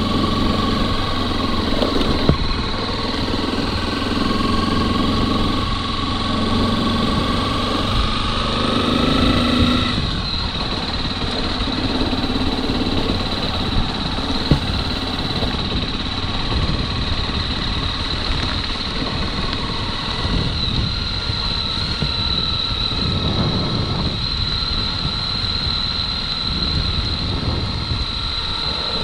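Motorcycle engine running under way, heard from the rider's position. It rises in pitch about eight to ten seconds in, then holds steadier, with a few short clicks.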